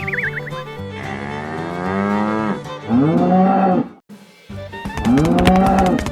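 A wavering whistle, then a series of cow-like mooing calls with rising and falling pitch, over light background music.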